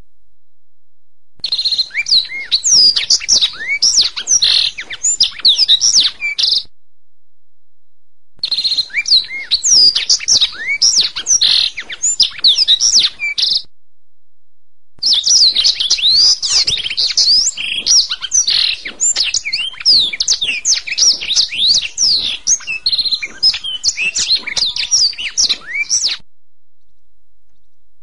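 Domestic canary singing in three bouts of rapid trills and sweeping whistled chirps, with short silent gaps between them. The last bout is the longest, about eleven seconds.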